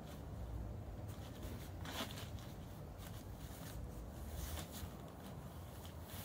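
Rustling and scraping of a plastic ground sheet and stones as a person crawls and shifts on it, a run of irregular crackles with the loudest about two seconds in, over a low steady rumble.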